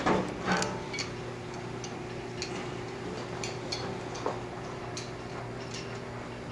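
Sharp, irregular ticks and clicks, about two a second, from a copper heating pipe being frozen solid by a CO2 dry-ice pack while ice builds up inside it. A steady low hum runs beneath, and a couple of louder knocks come right at the start.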